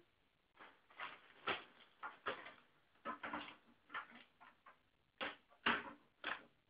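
Snack packets and small objects being handled on a table: a dozen or so short, irregular rustles and knocks, faint.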